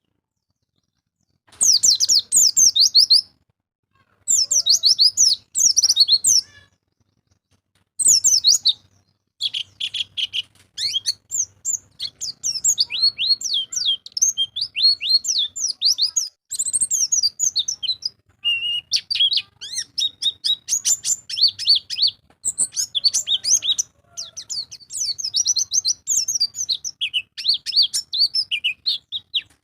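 White-eye (pleci) singing in rapid, high chirping trills. For about the first eight seconds it comes in short bursts with silent gaps, then runs on almost without a break as quick chirps and warbles.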